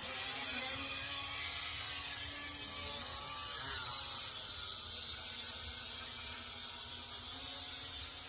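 Eachine E58 pocket quadcopter's small motors and propellers whirring steadily in flight, a high-pitched buzz whose pitch wavers slightly.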